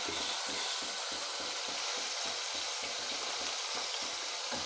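Coated chicken pieces deep-frying in hot oil, a steady sizzle of bubbling oil. The frying is near its end, with the coating turning golden brown.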